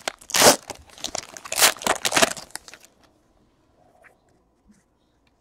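Foil pack wrapper and a stack of trading cards being handled, making several crinkling, sliding rustles in the first three seconds.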